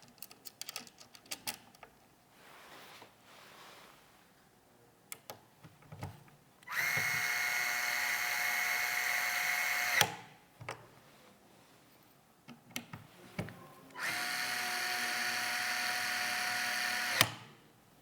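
Small electric screwdriver running in two bursts of about three seconds each, a steady whine that cuts off with a sharp click each time. Light clicks and handling taps come before and between the bursts.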